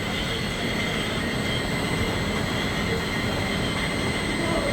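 Bourbon bottling line running at about 30 bottles a minute. The conveyor and gravity-fed filling machinery make a steady mechanical din, with a few thin, steady high whines over it.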